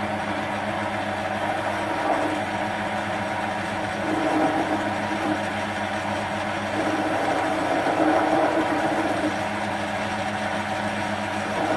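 Small metal lathe running and facing off a chrome-moly steel part: a steady motor hum, with the cutting noise swelling a couple of times as the tool feeds in.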